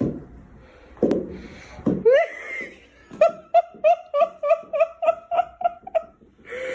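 A few short knocks, then a rapid run of laughter: even, same-pitched 'ha-ha' pulses, about four a second, for some three seconds.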